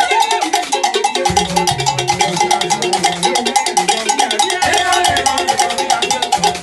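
Brass band playing live: the horns repeat a short riff over a fast, even percussion beat, with a pair of wooden hand drums struck with a stick and a hand.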